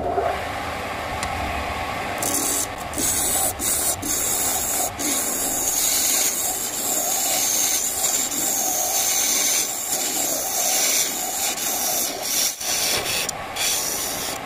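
A homemade wood lathe running, with a turning chisel cutting into the end face of a spinning wooden bowl blank from about two seconds in: a continuous scraping hiss of shavings being cut, broken by several brief pauses as the tool lifts.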